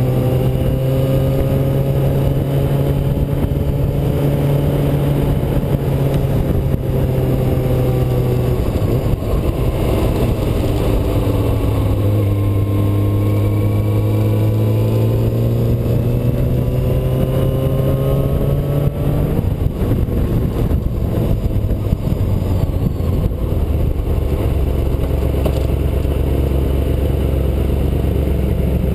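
Yamaha R6's inline-four engine running under way, heard from a camera mounted on the bike with road and wind noise. The engine note shifts about nine seconds in, then drops to a low, steady note for the last few seconds as the bike slows.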